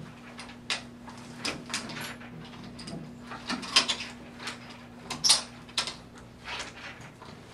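Curtain carrier hooks and their short chains clinking and rattling as the nickel-plated grommets of a blackout curtain are hooked onto the wheeled track carriers one by one, with fabric handling. Irregular clicks come every half second or so, the loudest about five seconds in.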